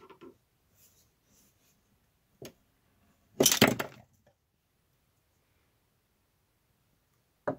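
Freed stepper motor and steel screwdrivers handled on a wooden workbench: a faint click about two and a half seconds in, then a loud, brief clatter of metal knocks about three and a half seconds in, and a sharp click near the end.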